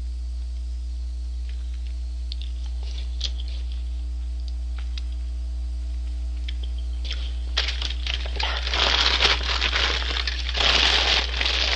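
A paper fast-food wrapper being crumpled up by hand, a dense irregular crinkling that starts about two-thirds of the way in. Before it there are only a few faint clicks over a steady low electrical hum, which continues throughout.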